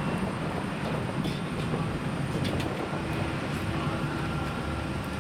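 Rolls-Royce Trent XWB turbofans of an Airbus A350 climbing out after takeoff: a steady low jet rumble.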